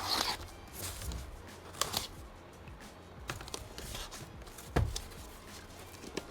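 Handling and unpacking a replacement laptop screen: scattered rustling of packaging with a few light knocks and clicks, the sharpest about five seconds in.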